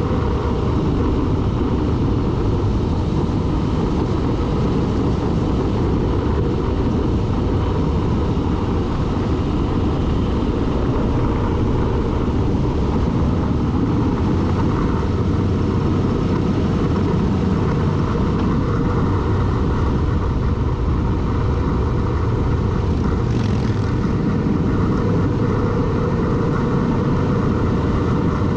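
A vehicle running at speed, with steady, unbroken road and wind noise and no sharp changes.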